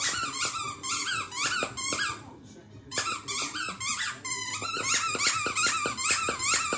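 Squeaker in a plush Lamb Chop toy squeaking over and over as a pitbull chews it, in quick runs of about three to four squeaks a second, with a short pause a little past two seconds in.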